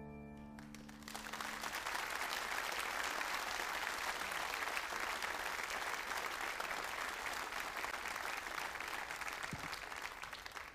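A grand piano's final chord rings and fades in the first second or two, then an audience applauds steadily, the clapping tapering off near the end.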